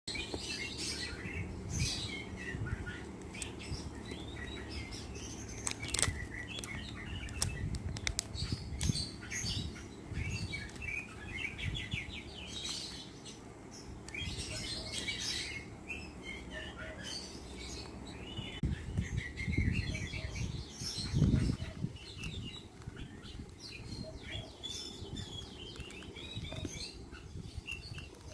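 Slime being squeezed, stretched and folded by hand, with irregular squelches and quick runs of small crackling pops.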